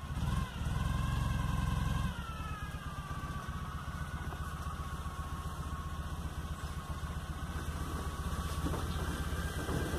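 Ural sidecar motorcycle's flat-twin engine running off-road: it pulls harder for a moment about half a second in, eases back after about two seconds, then runs steadily and grows louder as the rig comes down the trail.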